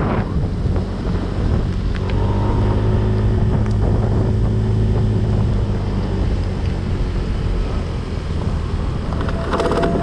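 Honda Vario 125 scooter's engine running at a steady pace while riding, with wind rushing over the microphone.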